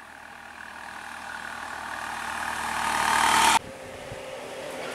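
Road vehicle engine approaching and growing steadily louder, cut off abruptly about three and a half seconds in, followed by a quieter, steady engine sound.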